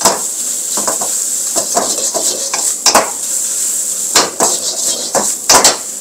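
Metal wok ladle scraping and clanking against a steel wok as fried rice is tossed and stirred, over a steady sizzle. Sharp clangs come every second or so, the loudest about three seconds in and several near the end.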